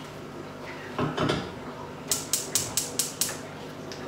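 Gas range's electric burner igniter clicking rapidly, about five sharp ticks a second for just over a second, as a burner is lit under a pot of water. A short thud comes about a second in.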